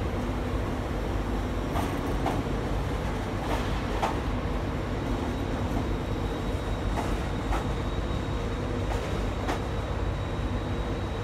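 LNER Azuma passenger train rolling slowly past along the platform and pulling away. Under the steady rumble and hum there are irregular sharp clicks from the wheels on the track.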